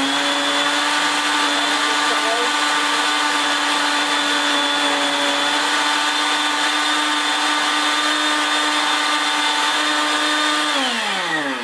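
Countertop blender motor running at a steady pitch, blending frozen pineapple chunks in juice, then switched off near the end, its whine falling in pitch as it spins down.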